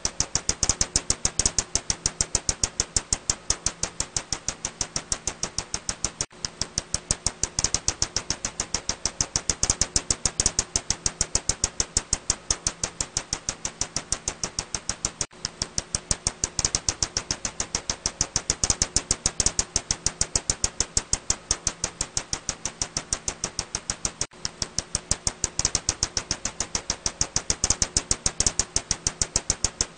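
Ussuri bat calls heard as a rapid, steady train of sharp clicks, about four or five a second, over a faint low hum.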